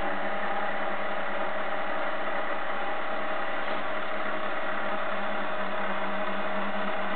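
12-volt DC gear motor running steadily, turning the cat feeder's wooden drum through a feeding rotation: an even, unbroken whir.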